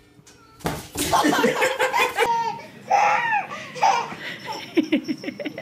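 Laughter, with a small child's laughter among it, ending in a quick run of short rhythmic laughs.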